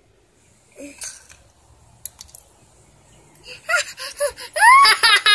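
A child laughing in high-pitched, rising bursts, starting about three and a half seconds in after a quiet stretch.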